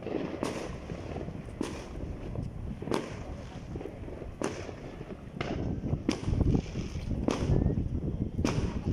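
Fireworks going off: about seven sharp bangs, roughly one every second and a half, each with a short echo. Under them runs a low rumbling noise that gets louder about six seconds in.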